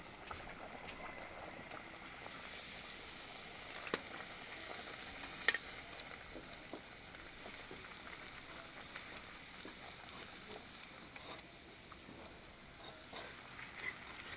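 Puris deep-frying in hot oil in a kadai: a steady sizzle that grows louder about two seconds in, broken by a couple of sharp clicks.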